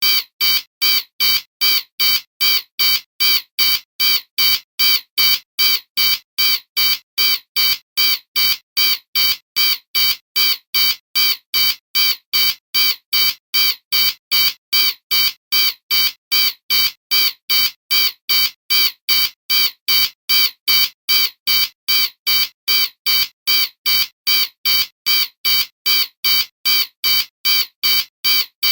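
Intruder alarm sounding: a high electronic beep repeating evenly about twice a second, without change.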